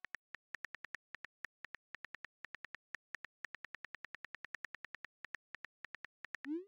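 Smartphone on-screen keyboard clicks as a text message is typed: quick, irregular taps, about seven a second. Near the end comes a short rising swoosh as the message is sent.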